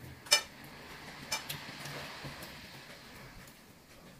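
Chopsticks clicking against a ceramic plate while crab and shrimp are picked apart: one sharp click about a third of a second in and a lighter one about a second later.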